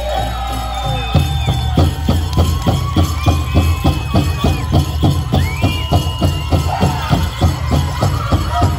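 Powwow drum group playing a song: high voices holding and sliding between notes over a big drum. The drum comes in strongly about a second in and is struck in a fast, even beat, about three to four strokes a second.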